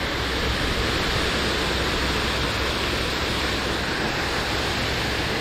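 Heavy rain coming down steadily, a dense even hiss.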